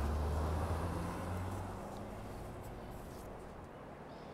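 A vehicle's low engine hum fading away over the first two seconds, leaving faint outdoor background noise.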